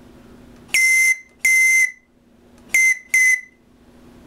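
A shrill whistle blown four times: two blasts of about half a second, then two shorter ones, each at one steady high pitch.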